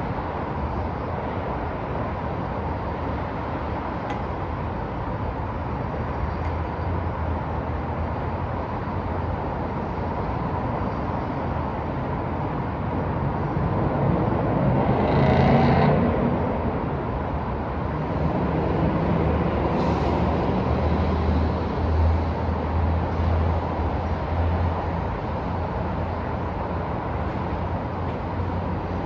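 Downtown street traffic: a steady wash of road noise with engines running low, and one vehicle passing louder about halfway through, swelling and fading. A couple of brief clicks stand out briefly.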